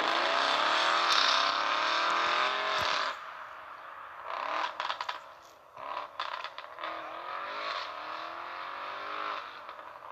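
Audi RS6 Avant's twin-turbo V8 accelerating hard, its engine note climbing and dropping back at each upshift. About three seconds in it falls to a quieter note that keeps rising through the gears, with a few sharp crackles, as the car pulls away.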